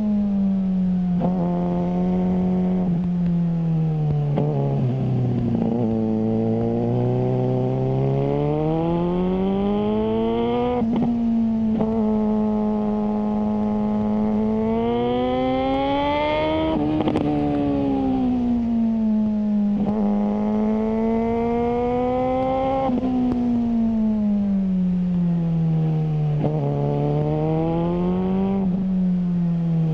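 Suzuki GSR600's inline-four through a GPR Ghost aftermarket exhaust, pulling through the gears: the engine note climbs under acceleration and drops sharply at each upshift, four times, after slowly falling as it slows over the first few seconds.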